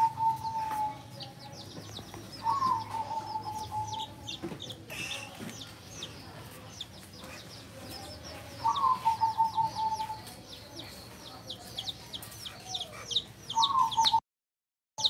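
Baby chicks peeping constantly, many thin, high cheeps a second. A lower held note that begins with a brief rise sounds four times, a few seconds apart, and the sound cuts out briefly near the end.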